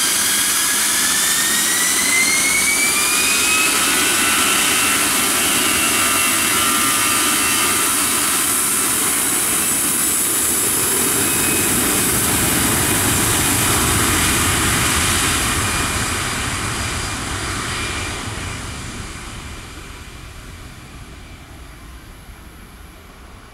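Airbus A320-214's CFM56 jet engines spooling up to take-off thrust: a whine rising in pitch over the first few seconds, then a loud, steady rush of jet noise through the take-off roll. From about two-thirds of the way in it fades steadily as the airliner speeds away down the runway.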